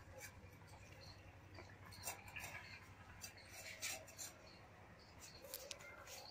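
Indian street dog eating noodles from a steel bowl: faint chewing and licking with scattered small clicks against the metal bowl.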